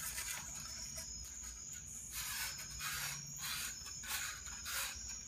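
Short dry rubbing strokes on a glider's tail boom tube being worked by hand, a few a second from about two seconds in. A steady high trill runs underneath.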